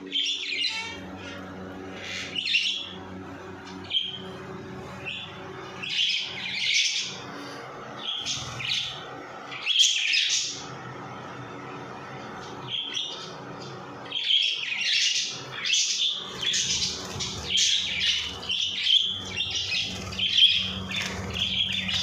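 Small cage birds, budgerigars among them, chirping and squawking in short, irregular calls that become busier and near-continuous in the second half, over a faint steady low hum.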